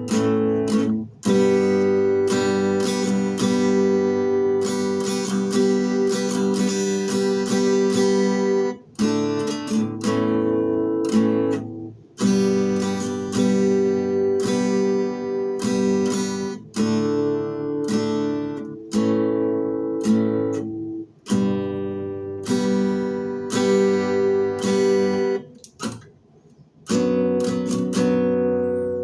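Acoustic guitar strumming chords with no singing, broken by short pauses between phrases.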